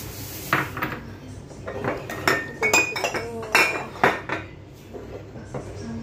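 Metal utensils clinking and scraping against a pan and dishes as food is handled, a run of sharp clinks, some ringing briefly, thinning out after about four seconds.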